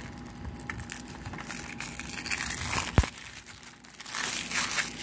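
Plastic shrink-wrap being torn and crinkled off a Blu-ray case, in rustling bursts, with one sharp click about three seconds in.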